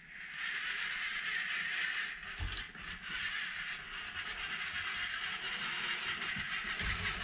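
Hobby Engine RC excavator's small electric track motors and gearboxes whirring steadily as it crawls down the trailer's metal ramps, with low thuds about two and a half seconds in and near the end as the tracks drop onto the ramps and floor.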